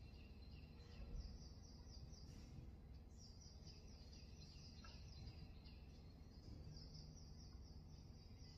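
Near silence: low room hum with faint, high-pitched chirping that repeats quickly in runs.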